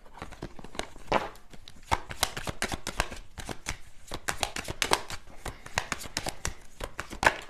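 A tarot deck being shuffled by hand: a fast, irregular run of crisp card clicks and flicks.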